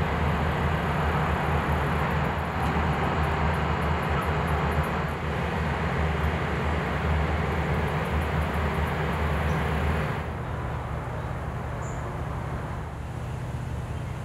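Steady low mechanical rumble with a hiss of background noise, like distant traffic. About ten seconds in it drops to a quieter, lower hum.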